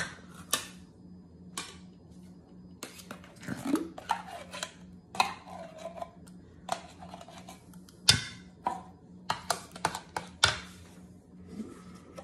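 Metal spoon scraping and clinking against a tin can and a bowl as thick condensed cream of mushroom soup is scooped out. The sound comes as a string of irregular clicks and scrapes.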